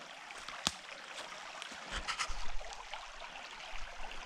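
Shallow creek running over stones, a steady rushing hiss of water. A sharp click comes under a second in, and a few low bumps follow around the middle.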